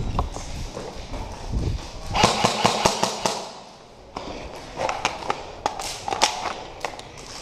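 Movement through an indoor airsoft arena: heavy footfalls and thumps, then two runs of sharp cracks and clatter, the first about two seconds in and the second about five seconds in.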